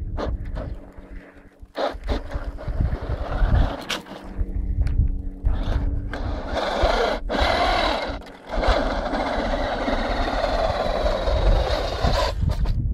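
HPI Blitz radio-controlled 2WD short-course truck driving on a loose dirt slope: motor running and tyres scrabbling and scraping through the dirt, in spurts with brief letups, loudest during the climb in the second half.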